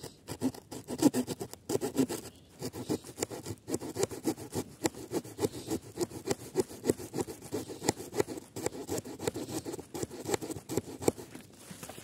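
Wood saw of a Victorinox Huntsman pocket knife sawing through a small log, a rasping scrape on each quick back-and-forth stroke, several strokes a second. The sawing stops just before the end.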